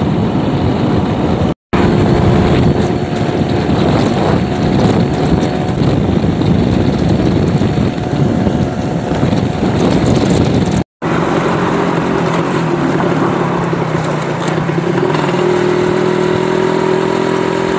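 Yamaha 125Z two-stroke motorcycle being ridden, its engine note under heavy wind rush on the microphone. About eleven seconds in, after a brief dropout, the wind eases and the engine's steady hum comes through more clearly, edging up in pitch near the end.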